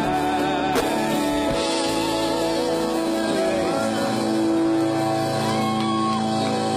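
Live band playing a reggae song, with a singer's voice over held chords.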